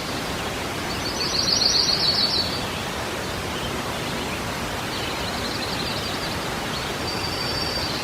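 Steady rushing outdoor ambience with a bird chirping in quick runs, the loudest run a little over a second in and fainter ones later.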